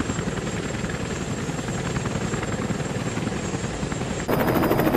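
Helicopter rotors running, a steady rapid chopping, jumping louder and sharper about four seconds in.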